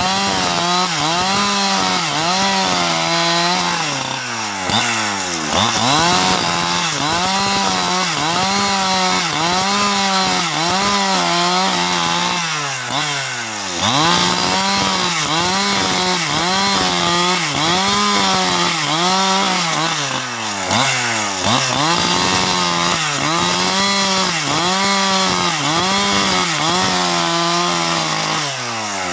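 Husqvarna 365 two-stroke chainsaw at high revs, ripping a log lengthwise into planks. The engine note sags under load and recovers about once a second, with a deeper drop roughly every eight seconds.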